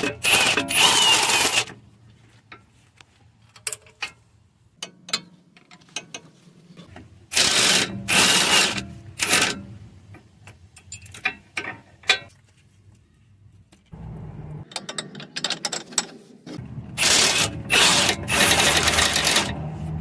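Hand ratchet wrench with a 17 mm socket clicking in three quick bursts as it turns motor-mount nuts, with scattered single clicks and taps of the tool between the bursts.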